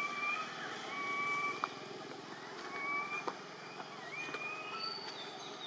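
Baby long-tailed macaque crying: a series of about five high, drawn-out whistle-like cries, each lasting about half a second, the fourth rising in pitch. A few sharp clicks fall between them, the loudest a little over a second and a half in.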